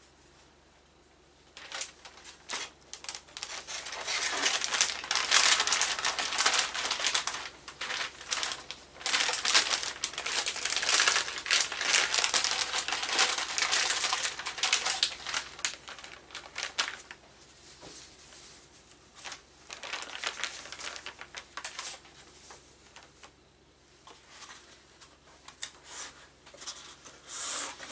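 Packaging being handled and crinkled, a dense crackling that is busiest for the first half and then comes in shorter bouts.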